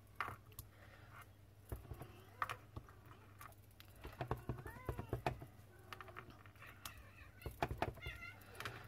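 A clear acrylic stamp block is pressed and tapped onto cardstock and an ink pad, giving scattered light taps and knocks. Twice, about halfway through and again near the end, a short pitched call rises and falls.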